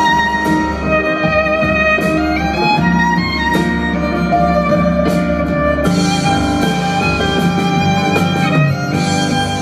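Violin and contrabass duo playing a pop-style instrumental, the violin carrying a sustained melody over the bass.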